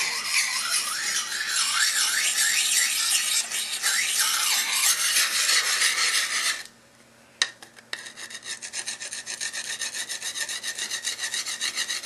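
Lansky Puck sharpening stone rubbed against the steel blade of a kukri: a continuous rasping grind. About two-thirds of the way through it stops abruptly, there is a click, and then quicker, evenly repeated short scraping strokes follow.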